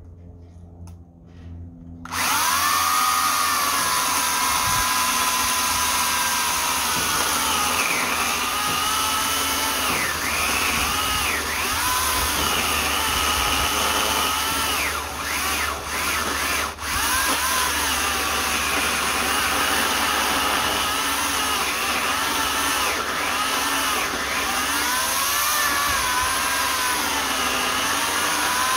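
Oregon CS1400 15-amp electric chainsaw starting about two seconds in and cutting into a log. The motor's whine wavers up and down in pitch as it cuts, with two brief dips about halfway through.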